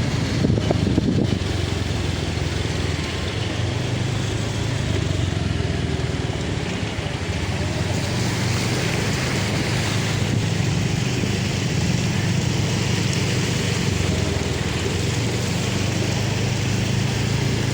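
Motor vehicle engines running steadily, a low hum under a constant hiss of noise, with no break or sharp event.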